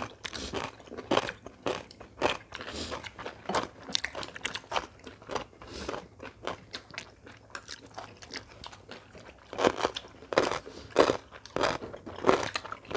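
People chewing and biting crisp food close to the microphone, a crunch with each bite. The bites come in a denser, louder run about ten seconds in.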